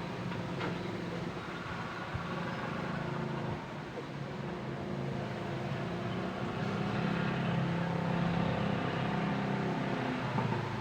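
Steady road-traffic noise: vehicle engines droning, growing somewhat louder in the second half.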